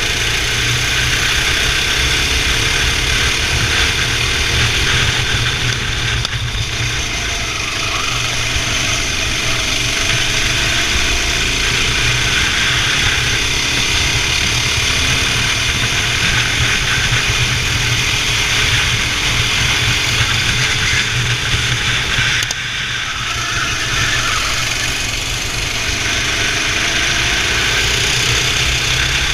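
Racing kart engine running hard under steady load, its pitch rising and falling; the engine note dips briefly twice, about six seconds in and again a little past twenty-two seconds.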